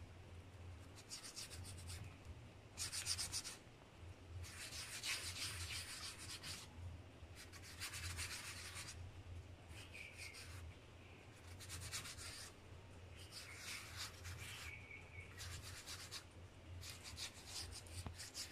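A hand rubbing oil over raw pizza dough on a pizza tray: faint swishing strokes in a dozen or so passes of a second or two each, with short pauses between.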